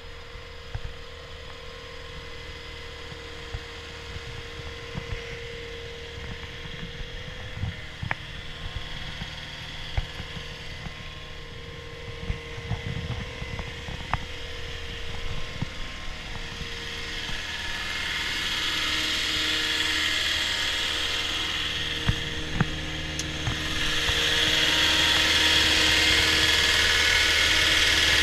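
Caterpillar 236D skid steer loader's diesel engine running steadily, with scattered light clicks. About two-thirds of the way in it grows louder with a higher whine, and it steps up again near the end.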